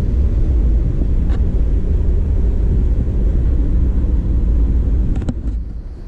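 Ducati Scrambler's air-cooled L-twin idling through a newly fitted Delkevic slip-on exhaust, a steady deep rumble. A few light clicks near the end.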